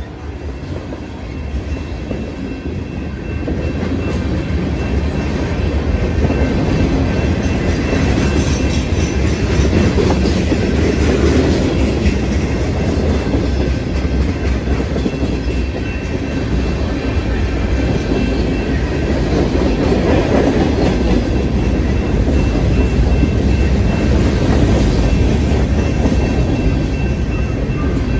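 CSX freight train's cars rolling past close by: the steady rumble of steel wheels on rail, building up over the first few seconds and then holding.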